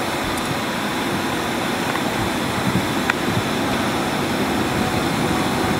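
Steady rushing noise inside an airliner cabin: the even hiss and rumble of the ventilation and engines, with a couple of faint clicks in the middle.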